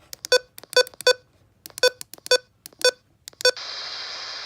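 A string of short, sharp electronic beeps on one fixed pitch, irregularly spaced, about a dozen of them, then about a second of steady radio static near the end.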